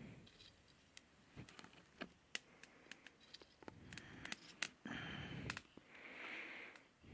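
Faint, irregular crackling and popping of a small wood fire burning in a wood stove, with a few soft rustling swells partway through.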